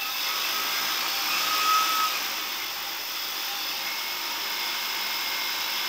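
Four T-Motor MN3110-15 brushless motors on a quadcopter spinning 13-inch carbon fibre props on the bench: a steady whirring hum, with a brief whine about two seconds in.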